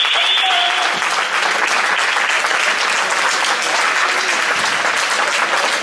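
Spectators applauding, with a dense even clatter of hand claps. A high steady tone sounds over it and stops about a second in.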